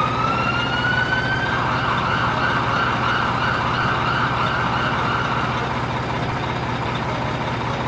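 A siren-like wail that rises in pitch over the first second and a half, then warbles for several seconds and fades, over a steady low hum.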